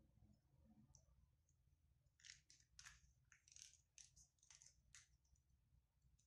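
Near silence with faint light clinks and clicks, a quick irregular run of them between about two and five seconds in, from a metal spoon and small glass dropper bottles being handled on a table.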